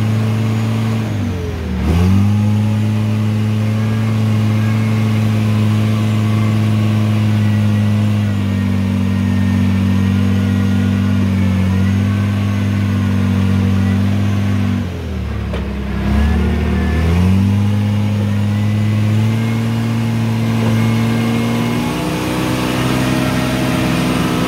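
Old log skidder's diesel engine running steadily, heard from the operator's seat. Its pitch drops sharply and climbs back twice, about a second and a half in and again about sixteen seconds in, and rises a little near the end.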